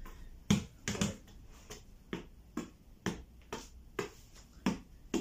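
Football being juggled by a foot in socks: a steady run of short, dull thuds about twice a second, one for each touch of the ball.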